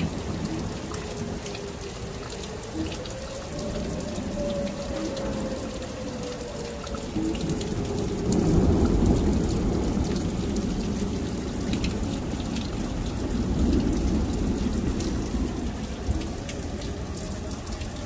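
Tornado warning siren wailing faintly, its pitch sliding slowly up and back down, then fading under a loud, low, gusty rumble with rain.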